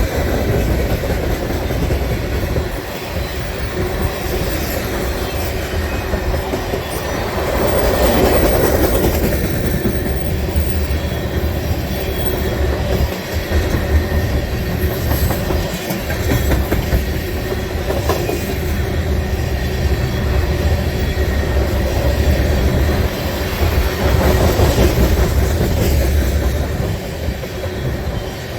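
Freight cars of a long mixed manifest train rolling past at speed: steady wheel-on-rail noise with a deep rumble.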